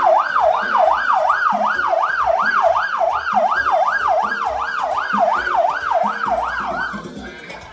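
Vehicle electronic siren in yelp mode: a loud, fast up-and-down wail about three times a second, which stops shortly before the end.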